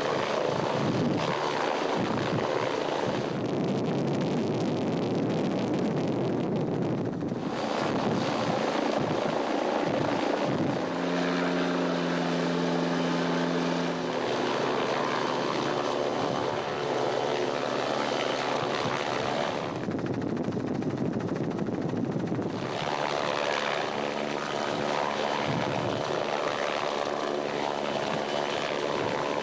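Helicopter hovering low overhead, its rotor and turbine running steadily.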